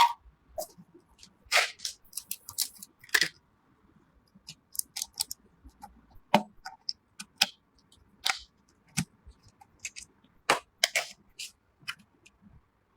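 Irregular sharp clicks, taps and brief scraping rustles from computer parts and packaging being handled and fitted together during a PC build.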